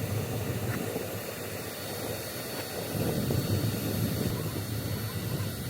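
Steady jet aircraft noise: a broad rumble that swells and eases, with a thin high whine held throughout.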